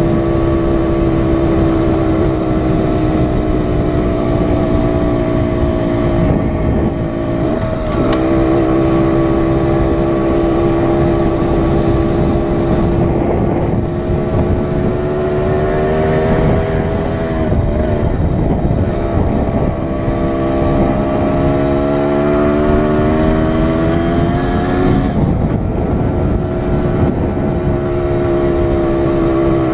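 Dirt bike engine running under way, its pitch mostly steady with a brief dip about eight seconds in, then climbing gradually for several seconds before dropping back about 25 seconds in, as when shifting up. Heavy wind rumble on a helmet-mounted microphone runs underneath.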